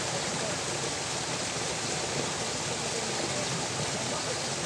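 Steady rush of water flowing in a small irrigation channel.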